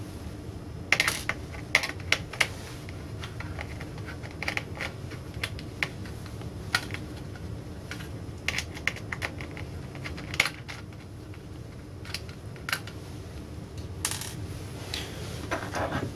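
Scattered sharp clicks and light metallic taps of a screwdriver backing screws out of an LCD monitor's sheet-metal board shield, with the tool and screws knocking on the metal chassis. A low steady hum lies underneath.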